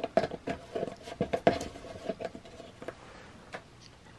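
Irregular small clicks and taps of handling wires and crimped connectors on the terminals on the back of a 12 V / USB outlet, with a faint steady tone under them; the clicking thins out after about three seconds.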